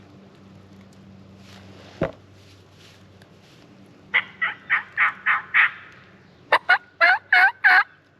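Turkey yelps: a run of about six evenly spaced yelps, then after a short pause two short, sharp notes and three louder yelps. A single sharp snap comes about two seconds in.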